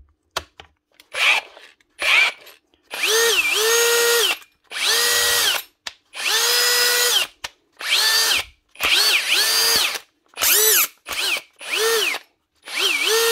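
Hikoki DV18DBXL brushless cordless drill run in about ten short bursts. The motor whine rises as the trigger is squeezed, sometimes holds steady for about a second, and falls away on release. This is a test run of the gearbox after the stripped housing was replaced, with no sign of slipping.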